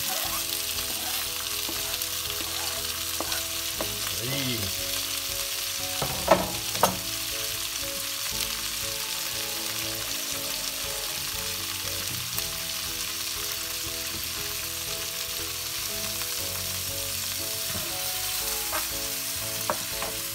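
Chopped tomatoes frying in hot oil with minced garlic in a frying pan: a steady, hissing sizzle. Two sharp knocks come close together about six seconds in, and a few light ticks near the end.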